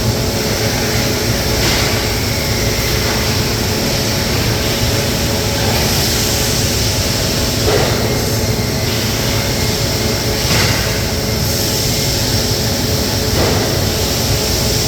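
Steady loud industrial machinery drone with a dense low rumble and a faint steady hum, broken by a few brief noisy swells.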